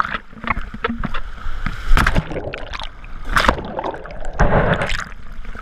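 Shallow beach surf splashing and churning around a camera that dips in and out of the water, with irregular sharp splashes and a muffled underwater rush while it is submerged.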